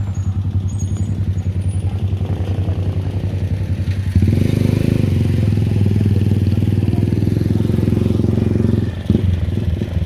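Motorcycle engine running with an even, rapid pulse, getting louder about four seconds in.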